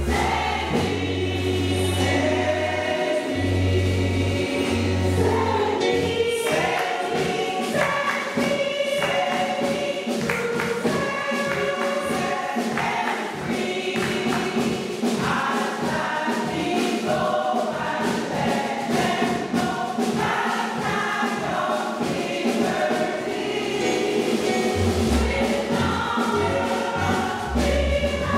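A church choir, mostly women's voices, singing a gospel song together, with low bass notes sounding under the voices in the first few seconds and again near the end.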